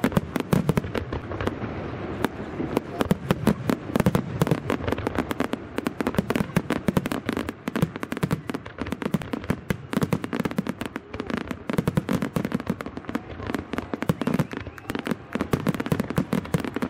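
Aerial fireworks display: a dense, continuous barrage of sharp bangs and crackles, many a second, mixed with deeper booms from bursting shells.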